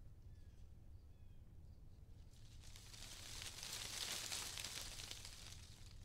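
Faint outdoor nature ambience: a few short, falling bird chirps in the first second, then a gust of wind rustling through leaves that swells to a peak midway and fades away near the end.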